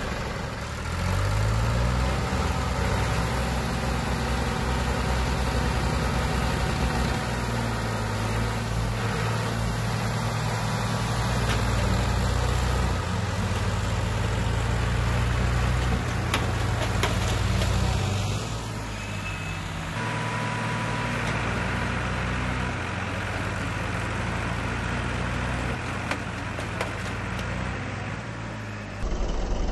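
Two tractors' diesel engines, one of them a Massey Ferguson 1035 DI, running steadily under load as they pull in opposite directions on a motorcycle clamped between them. The engine note drops and changes about eighteen seconds in.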